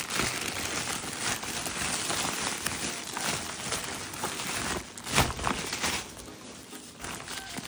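Black plastic courier bag crinkling and rustling as hands open it and pull a plastic pouch out, with a louder crackle about five seconds in, then quieter handling.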